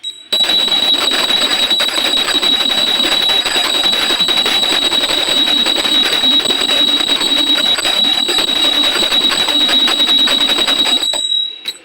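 Brass bell rung continuously and rapidly: a loud, steady, high ring over a dense clatter of strikes, starting abruptly and stopping about eleven seconds in, the ring dying away briefly after the strikes end.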